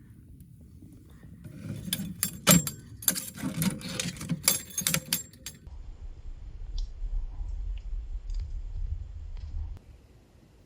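Light metal clinking and rattling for about four seconds, then a low rumble for about four seconds that stops suddenly.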